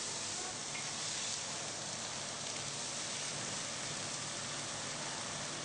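Noodles sizzling steadily as they are stir-fried in a wok.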